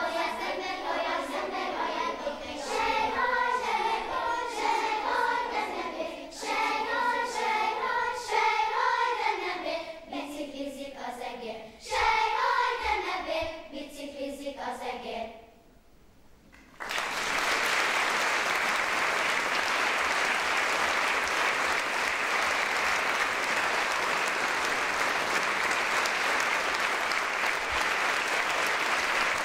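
A choir singing in several voices, the song ending about fifteen seconds in. After a brief pause, an audience breaks into steady applause that carries on for the rest.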